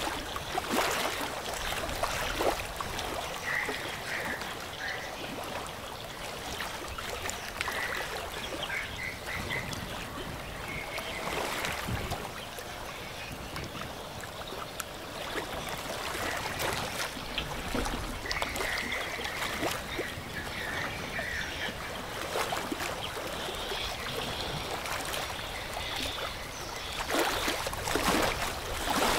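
Water rushing and breaking in a container ship's bow wave as the hull pushes through a river: a steady wash with many small splashes. Short high chirps sound now and then over it.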